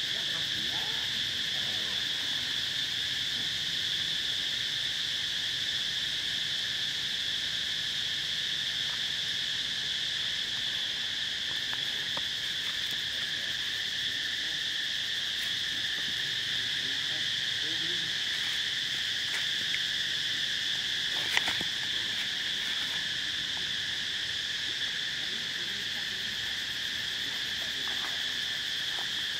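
Steady drone of an insect chorus, two high, unbroken tones with no rhythm, and one sharp click about three-quarters of the way through.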